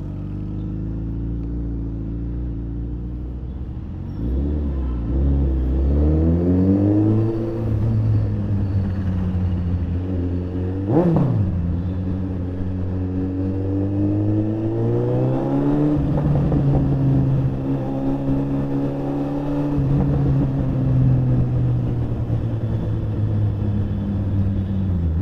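Suzuki Hayabusa's inline-four engine riding through traffic: running low and steady at first, then the revs climbing twice as it accelerates, with a brief sharp rise and fall in pitch about eleven seconds in, before settling to a steady cruise.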